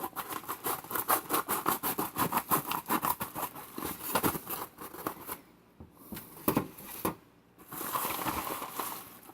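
Packaging being handled and opened with scissors: rapid crinkling and crackling for about five seconds, then a few sharp clicks and a short rustle near the end.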